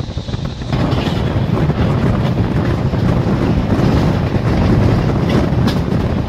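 Train running at speed, heard from inside the coach: a steady rumble of the wheels on the rails that gets louder about a second in.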